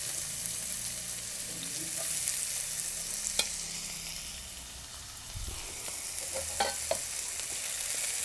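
Chopped onion sizzling steadily in hot oil with cumin seeds in a nonstick kadai, just added and starting to sauté. A few light clicks in the second half as a wooden spatula stirs.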